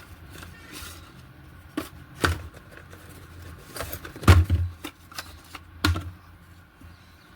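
A few sharp clicks and knocks of small parts being handled during a TV speaker repair, irregularly spaced, the loudest a little past four seconds in.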